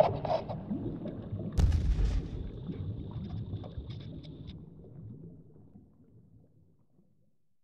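A deep boom sound effect hits about a second and a half in, then rumbles and fades out over a few seconds, with a thin high whine and faint crackle under it until all dies away.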